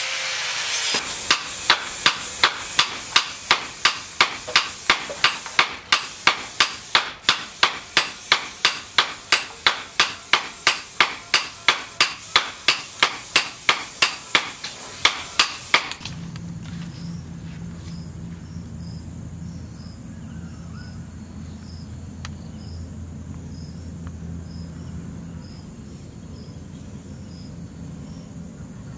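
Rapid, even knocking strokes, about three a second, that stop abruptly about halfway through. After them comes a low steady hum with insects chirping faintly.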